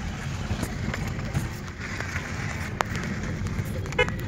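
Car driving at low speed, heard from inside the cabin: a steady low engine and road rumble with small knocks and rattles. There is a brief pitched sound about four seconds in.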